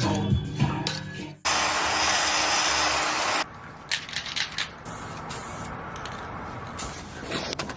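A loud, steady hiss lasts about two seconds and cuts off abruptly. Small knocks and handling clicks come before and after it.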